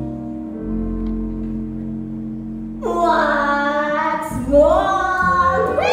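Music: a held instrumental chord for about three seconds, then a woman's singing voice comes in, holding long notes that slide up and down in pitch.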